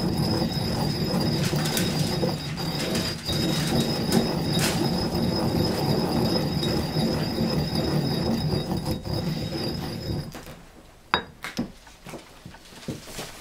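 Granite pestle grinding a dry mix of seaweed, angelica seeds and salt against a granite mortar: a continuous stone-on-stone scraping with a thin high squeal running through it. It stops about ten seconds in, followed by a few sharp knocks as the pestle is laid in the mortar.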